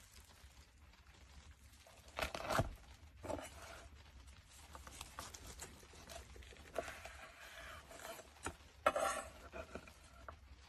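A knife cutting through a crisp, browned crust of a stuffed meat roll and scraping on a wooden cutting board: faint crackling and scraping in a handful of short bursts. The loudest come about two seconds in and again near the end.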